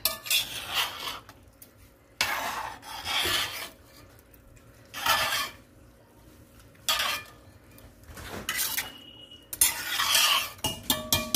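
Metal slotted spoon stirring rigatoni and sauce in a pot, scraping against the pot in repeated strokes with short pauses between them, and a few sharp clinks of metal on the pot near the end.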